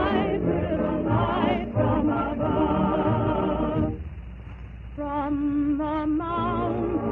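Background music of choral, operatic-style singing with strong vibrato. About four seconds in it drops quieter for roughly a second before the voices come back.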